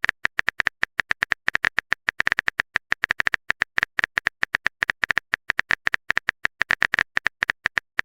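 A rapid, uneven run of short clicks, about ten a second, each a brief tick at the same bright pitch, like a typing sound effect.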